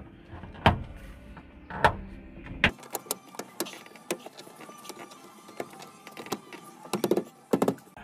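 Plastic door trim panel clips snapping into the car door as the panel is pressed on by hand: a few sharp snaps in the first three seconds, then lighter scattered clicks and knocks of handling against the door.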